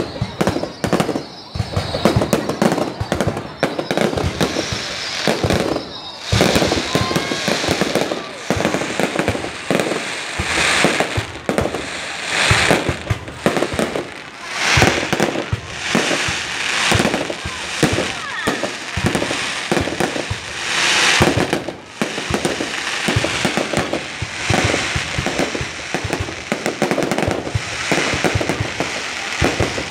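Fireworks display: a rapid, continuous barrage of shell bursts and bangs with crackling, swelling into louder surges of crackle several times.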